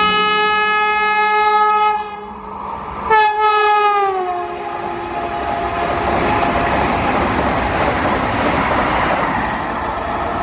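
Vande Bharat Express trainset sounding a long steady horn blast that cuts off about two seconds in. A second horn blast starts about a second later and drops in pitch as the train passes at speed. The loud rushing, rattling noise of the coaches going by follows.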